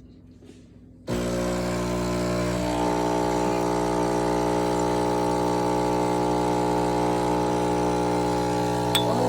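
Espresso machine switching on about a second in and running with a steady, even buzzing hum as it brews a single cup.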